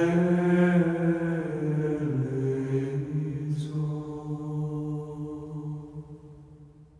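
Low, slow vocal chant on long held notes, fading out over the last few seconds.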